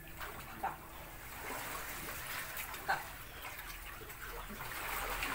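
Small waves lapping and trickling over a pebbly shoreline, growing a little louder toward the end. Two short faint sounds stand out, about a second in and near the middle.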